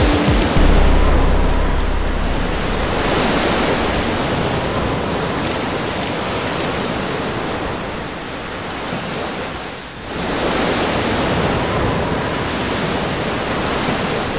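Strong wind buffeting the microphone over rushing water and breaking surf, a steady loud rush with a brief dip about ten seconds in.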